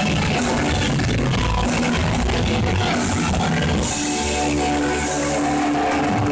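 Rock band playing loud, full-band music; about four seconds in the drums and dense playing drop away, leaving a held chord ringing.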